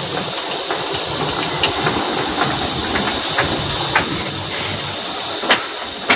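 Torque wrench on a Komatsu SAA6D140E-5 cylinder head bolt being pulled up to 30 kgf·m: several sharp metallic clicks, the loudest near the end as the set torque is reached, over a steady hiss.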